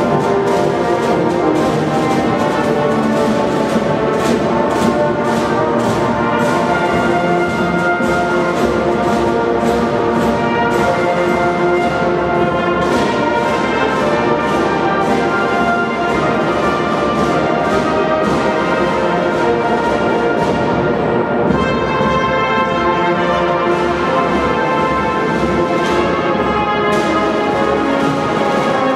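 Youth marching band playing a tune on brass instruments over beating snare drums.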